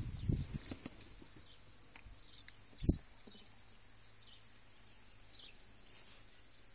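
Quiet interior of a parked car: a few light knocks in the first second and a single dull thump about three seconds in, over a faint low steady hum, with faint bird chirps from outside.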